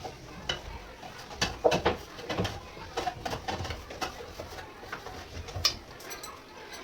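Scattered knocks and light clatter of household objects being handled, a few sharp ones, loudest about a second and a half in and again near six seconds.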